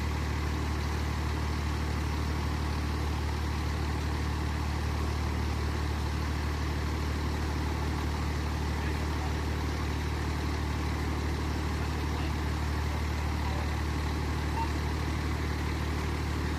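Fire truck engine idling steadily: a low, even hum that does not change.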